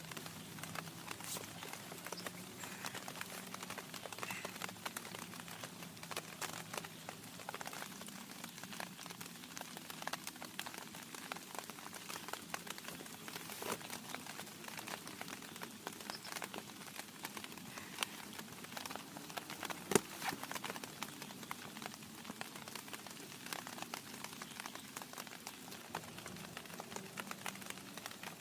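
Rain pattering steadily, many small drops ticking on a surface, with one sharper knock about twenty seconds in.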